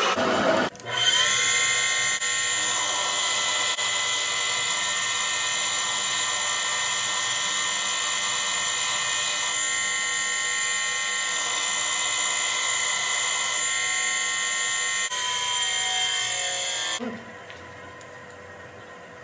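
A metalworking power tool running with a steady high whine made of several pitched tones. Near the end its pitch slides down and it cuts off sharply, leaving a faint hum.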